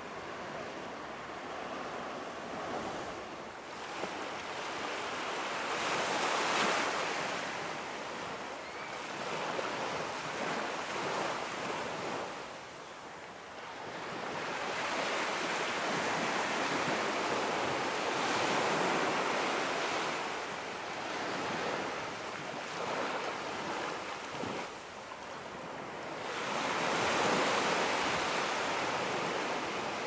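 Atlantic Ocean surf breaking and washing up a beach, a steady rush of water that swells and ebbs in slow surges, with three louder swells several seconds apart.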